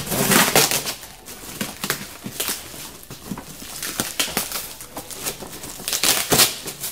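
Packing tape being ripped off a cardboard box and the flaps pulled open, with crinkling and scraping of cardboard and plastic wrap. The loudest rips come at the start and again near the end.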